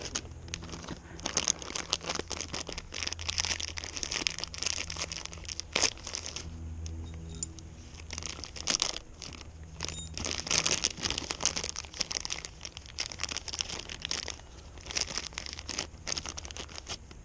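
Crinkling and rustling in repeated bursts of a few seconds each as oil and metal flakes are wiped out of a motorcycle's oil filter cavity.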